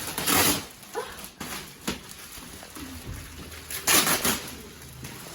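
Plastic wrapping from new furniture being torn and crumpled: two loud ripping rustles, one at the start and one about four seconds in, with lighter handling clicks between.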